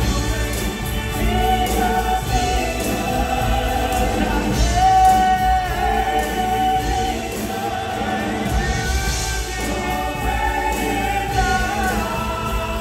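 Live gospel-style singing by a small vocal group in harmony, with instrumental backing, heard through the theatre's sound system.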